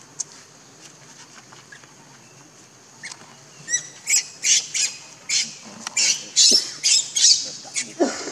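A macaque squealing shrilly over and over, about two or three calls a second, starting about four seconds in.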